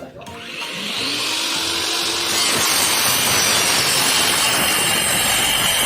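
Homemade table saw, a 7-inch 60-tooth blade driven by a DC 795 motor, cutting through a wooden board. It makes a high whine over dense cutting noise that builds over the first couple of seconds and then holds steady.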